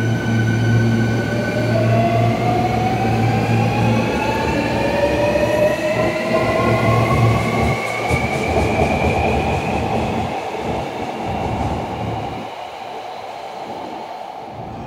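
Hankyu electric train pulling out of an underground station. Its traction motor whine rises steadily in pitch as it gathers speed over the rumble of wheels on rail. The sound then eases off near the end as the last cars leave.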